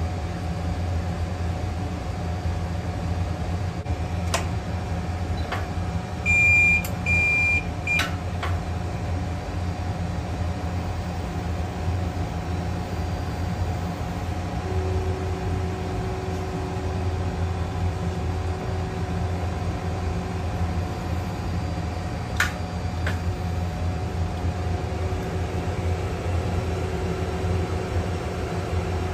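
BGA rework station running with a steady fan hum, giving two short beeps about six seconds in as its heating cycle for removing a laptop CPU ends. A few clicks follow, and a steady mid-pitched tone joins for several seconds midway as the heating head lifts.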